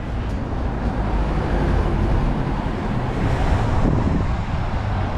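City street traffic going by, with wind rumbling on the microphone; one vehicle passing grows louder about three to four seconds in.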